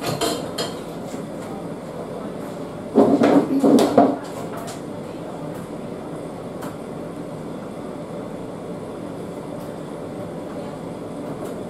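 Washing-up at a kitchen sink: a brief clink of dishes at the start, then a louder burst of noise lasting about a second, about three seconds in, over a steady background hum.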